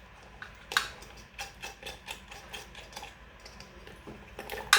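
Irregular metal clicks and taps of a hand tool working loose a screw on a ceiling fan's housing, with a sharper knock about a second in and again near the end.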